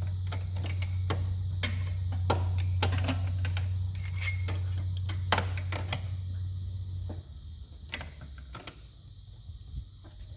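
Irregular metallic clicks and taps of a hand wrench snugging a Schrader valve into an aircraft nose-gear oleo strut. Under them is a steady low hum that stops about seven seconds in.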